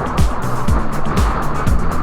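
Background music with a steady beat: a low kick drum about twice a second with crisp hi-hat-like ticks and a bass line.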